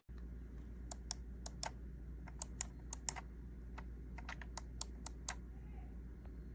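Keys on a Razer Tartarus V2 gaming keypad with mecha-membrane switches being pressed one after another: about eighteen sharp clicks in an irregular run, over a steady low hum.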